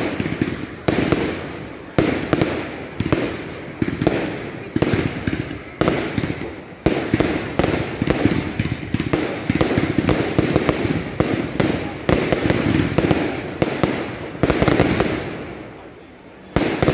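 Fireworks display: aerial shells bang overhead in a steady barrage, about one a second, each bang fading out before the next. There is a short lull near the end, then another loud bang.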